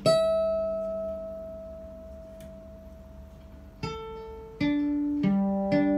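Old Japanese electric violin's open strings plucked by finger through a small amplifier. A single high string is plucked and rings on, slowly fading. From about four seconds in, a quick run of plucks moves down across the lower strings, each note ringing on over the others.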